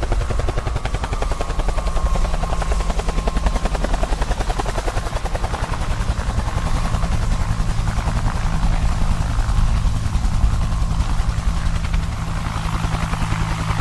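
Toy police helicopter's sound effect: a fast, steady helicopter rotor chop.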